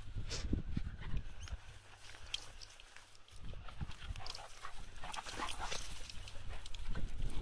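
A German Shepherd and a small tan dog play-fighting in long dry grass: irregular scuffling and rustling with play growls, quieter for a moment in the middle. A steady low wind rumble sits underneath.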